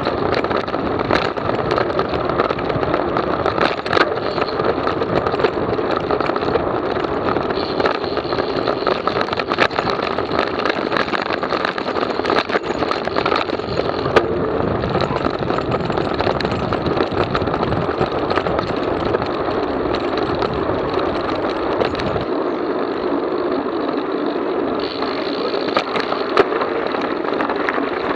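Mountain bike ridden fast along a rough dirt road, heard through an action camera's microphone: steady wind rush and tyre noise, with frequent small rattles and knocks from bumps in the road.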